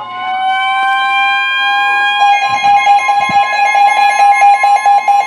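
NOAA Weather Radio warning alarm tone: a steady, loud tone near 1 kHz announcing an incoming severe thunderstorm warning. It is layered with a second, lower alert tone that glides up slightly and then turns into rapid, even beeping about two seconds in.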